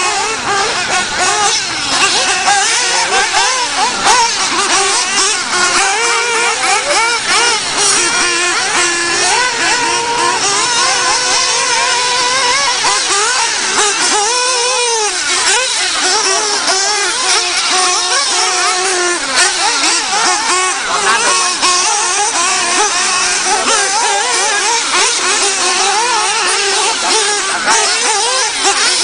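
Several radio-controlled off-road racing trucks' small high-revving motors, their pitch rising and falling constantly as they accelerate and brake around the track, many overlapping at once.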